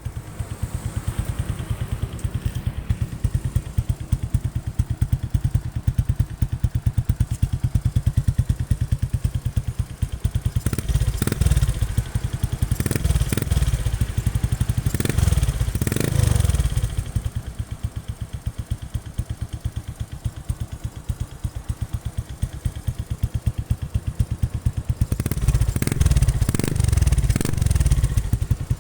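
Motorcycle exhaust through an Apido Version 4 aftermarket pipe in stock form, idling with a deep bass note and blipped on the throttle a few times in the middle and several times near the end.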